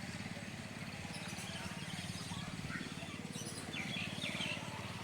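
An engine running steadily with a low, fast, even pulsing, and a few short bird chirps about three and a half seconds in.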